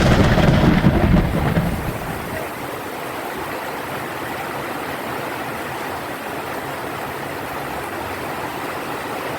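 A roll of thunder rumbling and dying away over the first two seconds, over heavy rain falling steadily.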